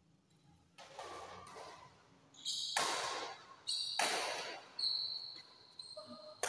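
Badminton rackets striking a shuttlecock during a rally, several sharp hits about a second apart, each ringing on in the echo of a large hall. A thin high squeak runs through the middle.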